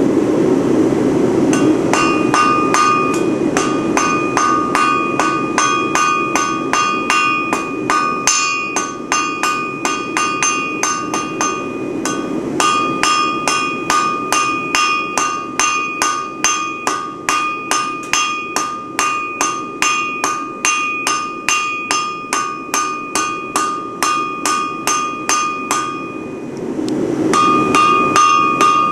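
Blacksmith's hammer striking hot steel on an anvil in a fast, steady rhythm of about three blows a second, each blow ringing. The hammering stops briefly twice. A steady low rushing noise runs underneath and is heard more clearly in the pauses.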